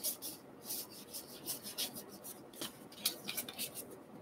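Stack of baseball cards rubbing and sliding against each other as they are flipped through by hand: a run of soft, quick papery swishes at an uneven pace, with a couple of light taps.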